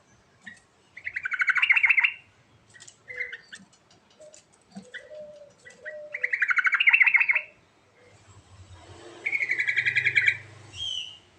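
Yellow-vented bulbul (trucukan) singing: three loud, bubbling phrases of rapid notes a few seconds apart, with softer short chirps between them.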